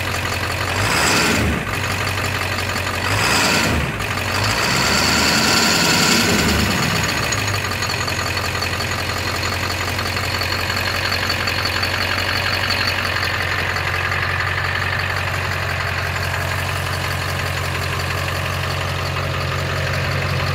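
Ford 7.3 L Power Stroke V8 turbo-diesel with a Holset HX50 turbocharger, revved briefly twice and then once for longer before settling back to a steady idle. A high whine comes in with the longest rev and fades away over several seconds.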